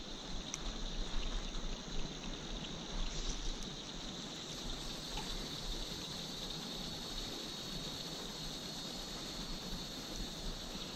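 Steady rush of river water, with a steady high-pitched chorus of crickets above it and a few faint ticks in the first few seconds.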